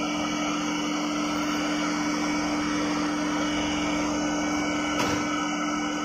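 WDS-700 BGA rework machine running a hot-air removal cycle: a steady hum with rushing air, and a short click about five seconds in.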